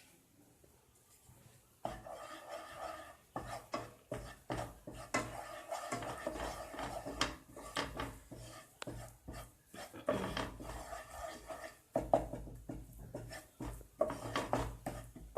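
A cooking utensil scraping and rubbing around a kadhai as gram flour (besan) is stirred into ghee to roast. It starts about two seconds in and goes on in short uneven strokes, with a couple of brief pauses near the end.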